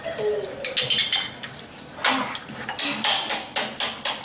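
Irregular clatter of kitchen utensils and dishes: a string of sharp knocks and clicks on a countertop.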